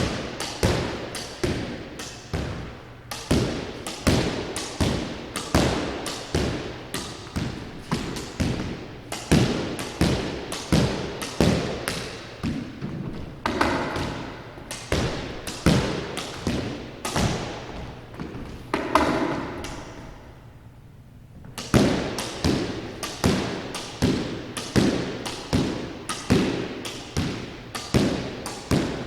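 Squash ball in a solo warm-up rally: racquet strikes and front-wall hits in a steady rhythm of about two sharp knocks a second. Twice there are short squeals from shoe soles on the court floor, and the hitting stops for about a second just after the second squeal, then resumes.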